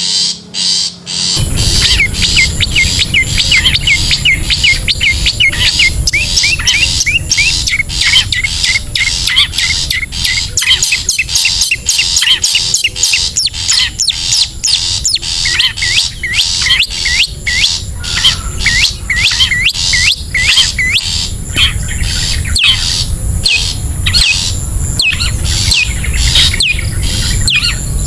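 Rapid, dense series of short bird chirps and squawks: a bird-luring call used to attract long-tailed shrikes. A low rumble runs underneath from about a second in.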